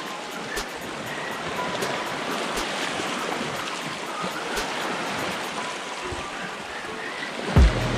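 Sea waves washing and fizzing over a rock shelf, a steady wash of foam draining around the rocks. Near the end, a single loud low thump.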